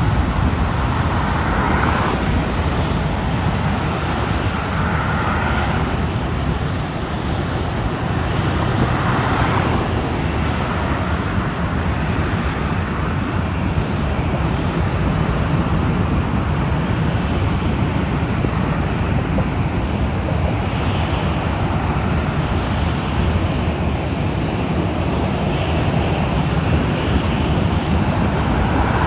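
Jet airliner engines, a steady low rumble with a hiss above it.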